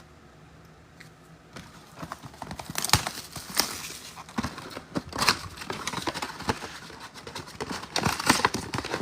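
Retail mega boxes of trading cards being opened by hand and the wrapped card packs pulled out: crinkling and rustling of wrappers and cardboard with scattered taps and knocks. It starts after a second or so of near quiet.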